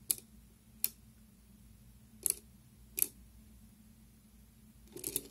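Soroban abacus beads flicked by a finger, clicking against the frame and beam: single sharp clicks at uneven intervals, a quick double click in the middle and a fast run of clicks near the end.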